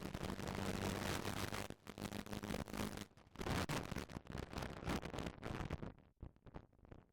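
Poor-quality onboard audio from a Caterham 340R on track: a rushing noise that keeps breaking up and cutting out. A steady engine note runs underneath for the first couple of seconds.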